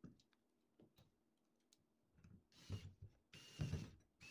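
A pencil scratching two short strokes across wood as a line is marked, after a few light knocks of wooden pieces being handled.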